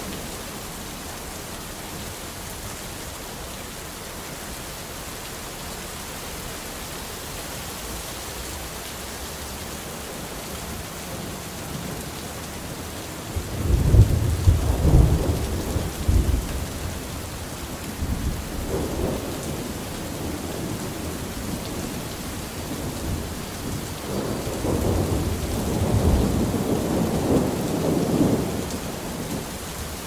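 Thunderstorm: steady rain hissing throughout. About halfway through, a sudden clap of thunder rolls into a deep rumble, followed by a shorter roll of thunder and then a longer rumbling roll near the end.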